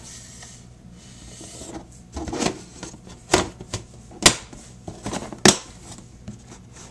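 Plastic hatchling tubs and their lids being handled: a rustle about two seconds in, then a series of sharp plastic clicks and knocks, three of them loudest, about a second apart.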